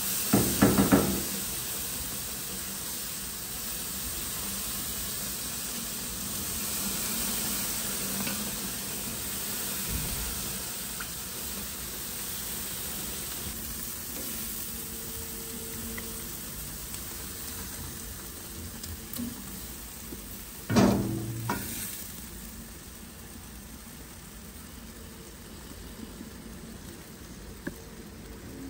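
Food sizzling as it fries in a pan, a steady hiss, with a few sharp knocks of a utensil near the start and again about two-thirds of the way through.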